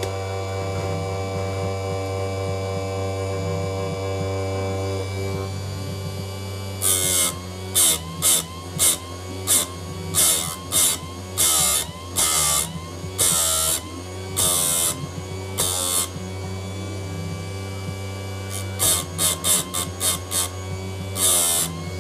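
Electric chainsaw chain grinder's motor running steadily, then from about seven seconds in a string of short grinding bursts as the wheel is brought down onto the cutter teeth of a dull chain, the motor's pitch sagging briefly under each bite; a second, quicker run of bursts comes near the end.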